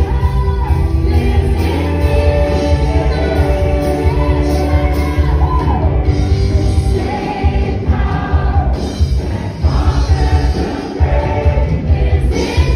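Live worship band playing a song, with vocalists singing into microphones over a strong bass line.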